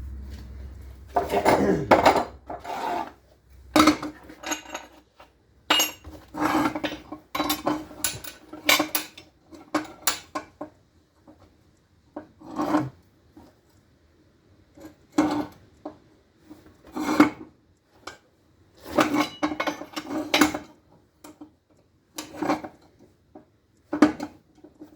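Steel tire iron pieces being worked by hand, with metal scraping and clinking in strokes about every one to two seconds. Many strokes carry the same short metallic ring. A low hum dies away about a second in.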